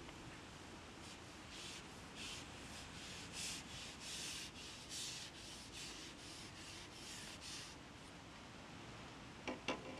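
Carbon fishing pole being handled and slid, about a dozen short rubbing, scraping strokes, followed by a few sharp clicks near the end.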